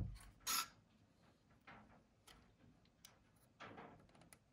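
Small carved wooden parts of a model helicopter knocking and clicking against each other as they are handled and fitted: a sharp knock about half a second in, then scattered light clicks.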